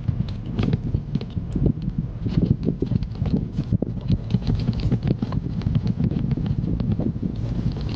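Wind buffeting the microphone while riding an electric skateboard, with frequent short rattles and knocks from the board on the road.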